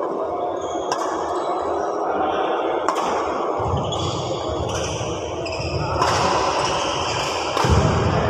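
Badminton rally: sharp racket strikes on a shuttlecock, about five of them a second or two apart, with low thuds from players' feet on the court floor from about halfway, loudest near the end.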